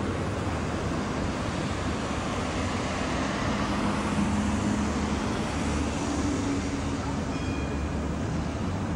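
Street traffic noise, with a car driving past close by about four seconds in, its engine hum swelling and fading.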